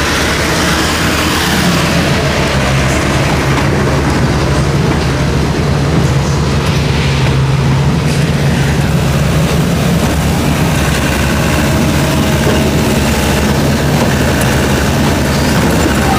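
Diesel engine of a Hino truck hauling a heavy generator set, running under load as the truck pulls through soft dirt: a steady low drone that grows louder for a few seconds in the middle.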